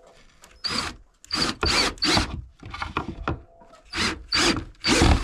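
Cordless drill driving screws in a run of about seven short bursts, each trigger pull a fraction of a second long, to fasten the door.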